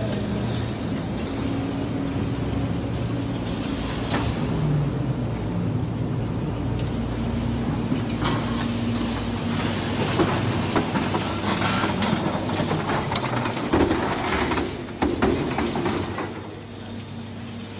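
Heavy scrap-processing machinery running with a steady low hum, overlaid by many sharp metallic clanks and bangs of scrap metal being handled, thickest in the middle of the stretch and easing near the end.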